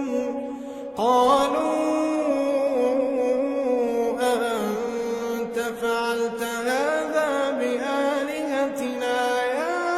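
A solo voice chanting Qur'an recitation (tajweed), holding long notes and sliding through ornamented melodic turns, with a short breath pause about a second in.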